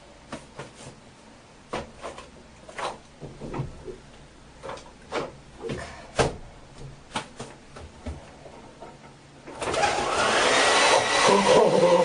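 A few light knocks and clicks, then nearly ten seconds in a hair dryer switches on and runs loud with a steady whine. The dryer has been packed with baby powder as a prank, so it blows a cloud of powder.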